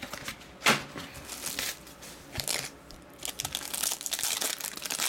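Plastic wrapping of a trading-card pack crinkling and tearing as it is handled and opened by hand, in irregular crackles with one sharp, louder crackle under a second in.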